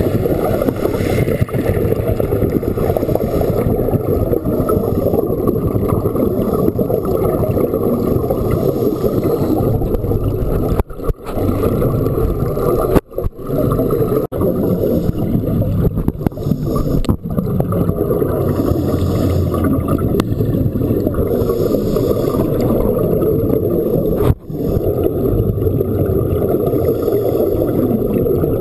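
Steady muffled underwater rumble picked up by a diving camera in its waterproof housing, broken by a few brief sudden drop-outs.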